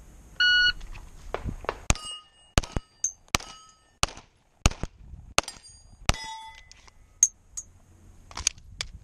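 A shot timer's start beep, then about seven pistol shots over some four seconds, several followed by the ringing of steel plates being hit. Near the end come a couple of metallic clicks as the pistol is unloaded.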